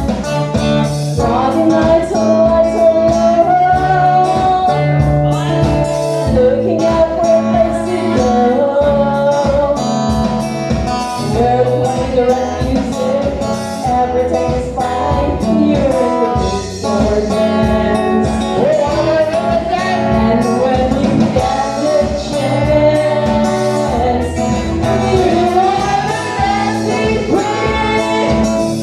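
A band playing a song: a sung melody over guitar and a steady drum beat.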